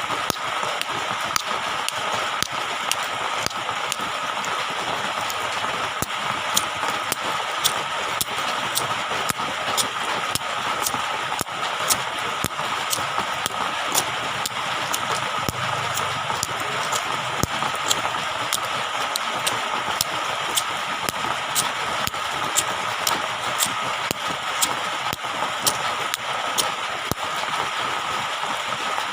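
Water hissing steadily with frequent sharp crackles and pops, and a faint steady tone under the hiss.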